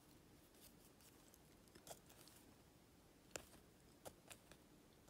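Near silence with a few faint, short clicks of a diamond-painting drill pen picking up drills from a tray.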